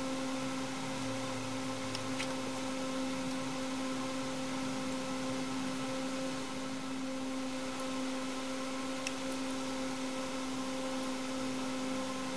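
Steady machine hum with an even hiss, unchanging throughout, with a few faint clicks.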